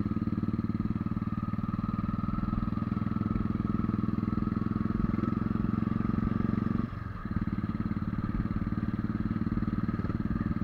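Motorcycle engine running steadily as it climbs the mountain road, heard from on the bike. The engine sound drops briefly, for under half a second, about seven seconds in.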